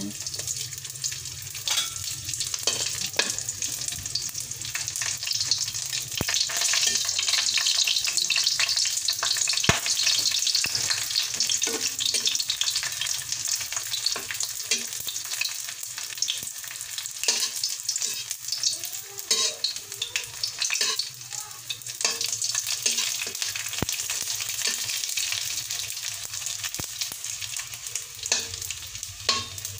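Dried danggit (rabbitfish) sizzling in hot oil in a metal wok, with a slotted spatula scraping and tapping against the pan as the fish are turned. The sizzle swells a few seconds in and eases off somewhat after the middle.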